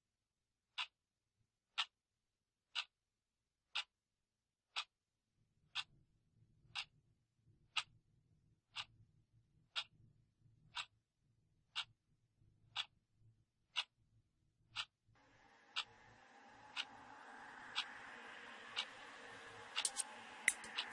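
Clock ticking steadily about once a second. About fifteen seconds in, a swelling wash of sound rises under the ticks, and near the end the ticks speed up into a rapid run.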